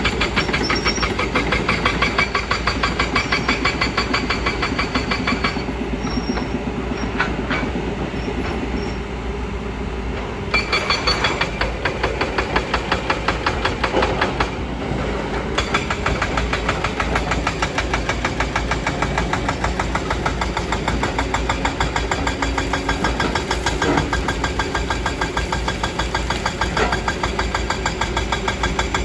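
Kobelco excavator's diesel engine running steadily with a fast pulse. It eases off twice, around a fifth of the way in and again around the middle.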